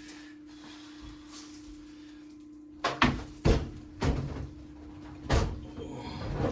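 Over-the-range microwave knocking and bumping against the wall mounting plate and cabinet as it is lifted and worked into place, about five knocks starting about three seconds in, over a steady low hum.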